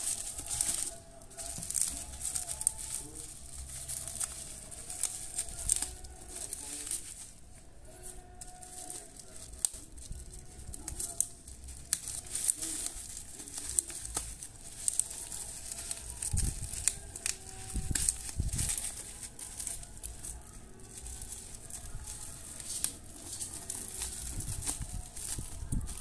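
Plastic bubble wrap crinkling and rustling as hands handle and pick at a wrapped cigarette carton, with irregular sharp crackles.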